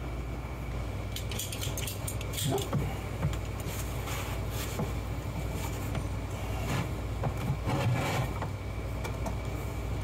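Handling noises: power cords and an air hose rustling, with scattered clicks and rattles as the hose is worked onto a small pancake air compressor's outlet fitting. A steady low hum runs underneath.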